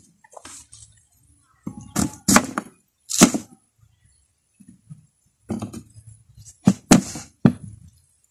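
A kitchen knife cutting through a yam tuber and knocking on a plastic stool top: a run of separate chops and thuds. They cluster around two to three seconds in and again from about five and a half to seven and a half seconds.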